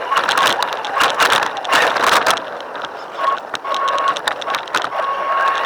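Radio-controlled car driving: a steady high whine that cuts in and out as the throttle is worked, with rattling, crunching clicks from the wheels over rough ground.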